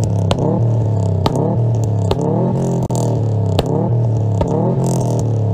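Car engine revved repeatedly through a custom stainless full-tube exhaust, quick throttle blips that rise and fall back about once a second, with sharp snaps in between.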